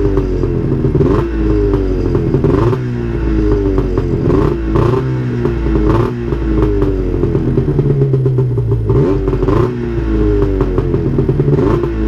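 2000 Arctic Cat ZR 600 snowmobile's two-stroke engine being blipped on the throttle over and over, about once a second, each rev jumping up and falling back. The revs pick up with no hesitation, the faulty throttle safety switch having been unplugged.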